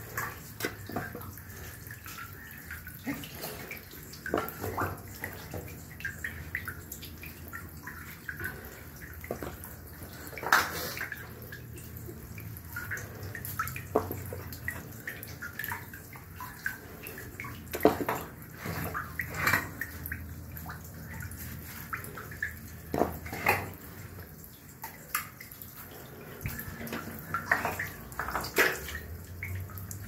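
Sewage water running and splashing in a manhole, broken by irregular wet slaps and knocks as lumps of sludge are scooped out by hand.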